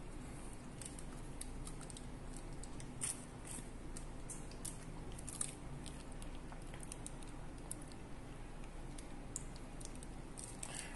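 Scattered faint clicks and soft squishes of fingers handling a plastic takeout container while squeezing calamansi over grilled squid, a few clicks louder than the rest, over a low steady room hum.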